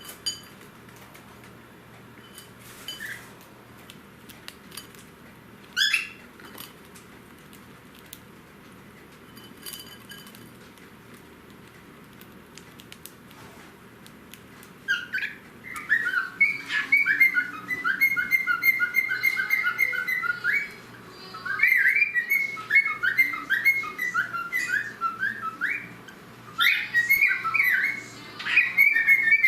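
Cockatiel whistling: a couple of short single calls early on, one a quick rising note, then from about halfway a long run of rapid, warbling whistled phrases with brief pauses between them.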